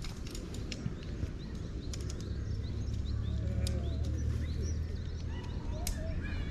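Small birds chirping, with scattered sharp clicks and a steady low rumble underneath.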